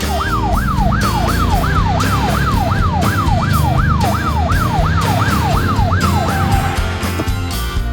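Fire-engine siren in a fast yelp, its pitch sweeping up and down about two to three times a second. It stops about six and a half seconds in on a short held note, with background music underneath.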